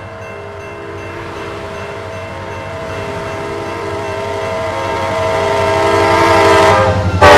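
Horn of the approaching Amtrak Auto Train's lead SC44 Charger locomotive, a chord of several steady tones held for several seconds over the low rumble of the train, growing louder as it nears. Near the end the sound jumps suddenly in loudness as the locomotive comes close.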